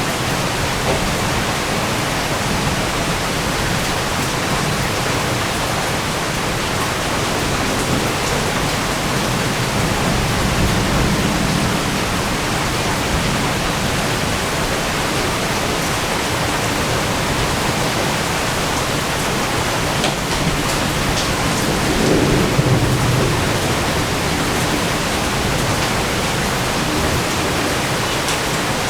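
Heavy rain falling steadily in a thunderstorm, with thunder rumbling twice: once about ten seconds in, and louder a little past twenty seconds.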